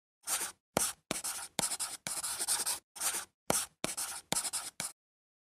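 Handwriting on paper: a writing tip scratching across the page in about ten short, uneven strokes. The strokes stop a little before the end.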